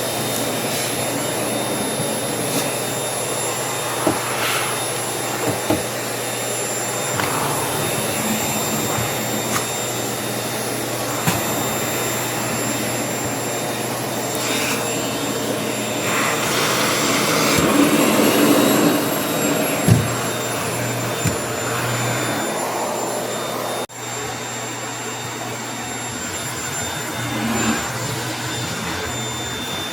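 Household vacuum cleaner running steadily as it is worked over the floor, with a steady high whine and a few light knocks of the nozzle. It swells briefly about two-thirds of the way through, and drops out for an instant a little later before carrying on.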